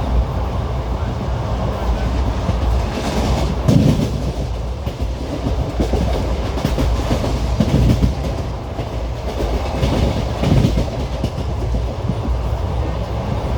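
Wheels of an Indian Railways ICF passenger coach running on the track: a steady rumble, with a group of clickety-clack beats over rail joints every few seconds.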